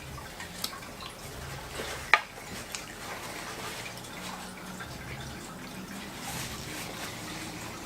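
A person eating: wet chewing and mouth clicks with light handling of food, and one sharper click about two seconds in.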